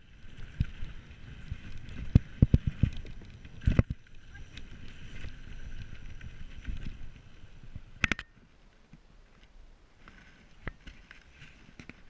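Full-suspension mountain bike (Specialized Enduro) riding fast down a dirt trail: rumble of tyres over the ground with repeated sharp knocks and rattles from the bike over bumps, plus wind on the microphone. A little after halfway it cuts off to a much quieter background with a few faint ticks.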